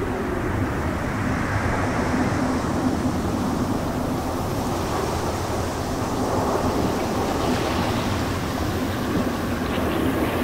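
Typhoon wind blowing hard, a steady rushing noise with a faint low howl running through it.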